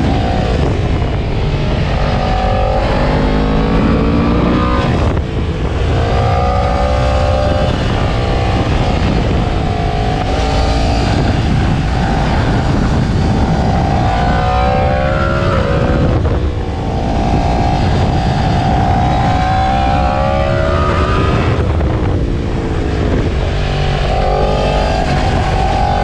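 Yamaha MT-10 SP's 998 cc crossplane inline-four engine at racing speed, its pitch climbing and breaking again and again as it pulls up through the gears, with short dips in level where the throttle closes about five and seventeen seconds in. Heavy wind rush underneath.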